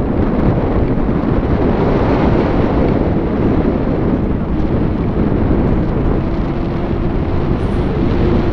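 Wind noise from the airflow of a tandem paraglider in flight, buffeting the action camera's microphone: a loud, steady rushing rumble.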